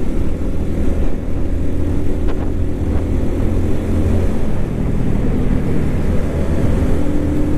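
Motorcycle engine running steadily while riding at cruising speed, with a low wind rumble on the onboard microphone.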